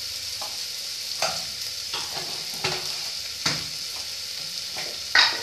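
Chopped onions and spices frying in oil in an aluminium pressure cooker pan, with a steady sizzle. A spoon scrapes and knocks against the pot about seven times; the loudest knock comes near the end.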